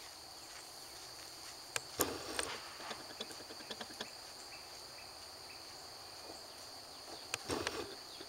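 Faint outdoor background of steady high insect chirring, with a few soft knocks and rustles about two seconds in and again near the end.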